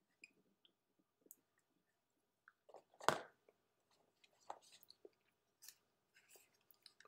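Faint close handling noises as two intranasal light-therapy applicator clips and their cables are fitted onto the nose: small scattered clicks and rustles, with one louder short scuff about three seconds in.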